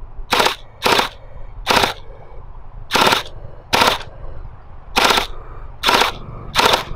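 Electric gel blaster running on an 11-volt battery, fired semi-automatically as eight single shots. Each shot is a short, sharp mechanical burst, spaced unevenly, roughly one a second.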